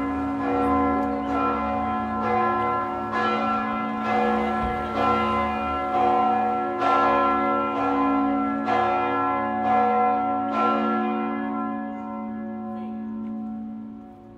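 Church bells ringing, about one stroke a second, each leaving a long ringing tone; the strokes stop near the end and the ringing dies away.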